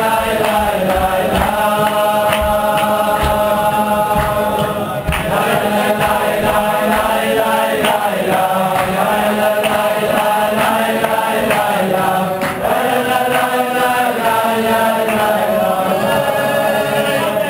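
A congregation of men chanting a Selichos prayer tune together, many voices holding long sustained notes. The singing dips briefly about five seconds in and again about twelve seconds in.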